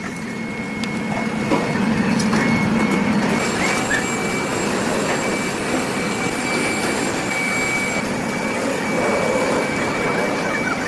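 Steady machinery noise with a thin, continuous high whine held through most of it and a few faint clicks.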